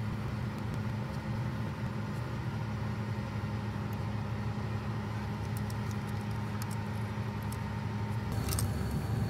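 A steady low hum, with faint clicks and rustles of a plastic wiring connector and wires being handled on a brake light switch; the clicks come more often near the end.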